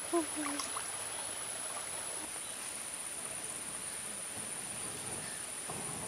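Shallow forest stream running, with a steady high-pitched insect drone over it. A short low pitched call sounds just after the start.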